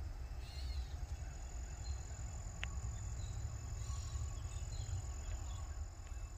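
Outdoor summer ambience: insects trilling steadily on one high note, with a few short bird chirps, over a continuous low rumble. A single click comes a little before halfway.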